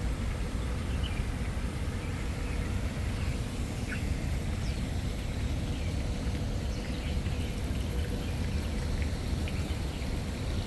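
Steady low outdoor rumble with a few faint, scattered bird chirps.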